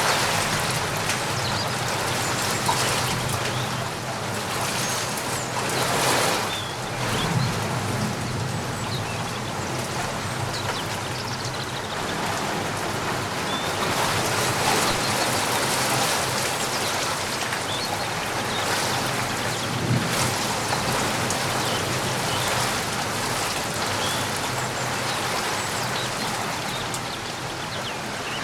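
Steady rain falling, with many separate drops heard striking nearby surfaces and a low hum underneath.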